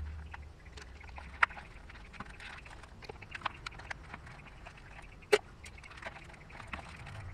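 Fish coated in ground toasted rice being handled and packed by hand into a plastic container: scattered small clicks, taps and rustles, with a sharper tap about a second and a half in and the loudest one about five seconds in.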